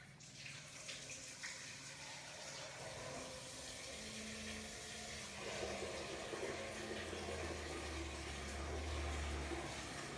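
Running water, slowly growing louder, with a low hum joining in the second half.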